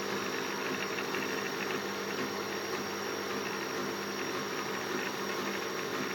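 Stepper motors of a homemade four-axis CNC hot wire foam cutter running slowly as the machine cuts a wing core: a steady mechanical hum with several held tones.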